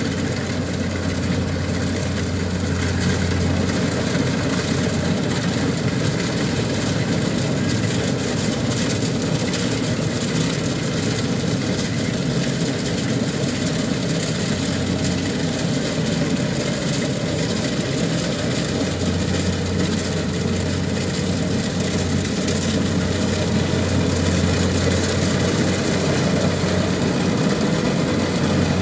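Kubota DC-70 rice combine harvester running under load as it cuts and threshes rice, its diesel engine and threshing machinery making a loud, steady mechanical drone. A low hum in the engine note fades in the middle and comes back about two-thirds of the way through.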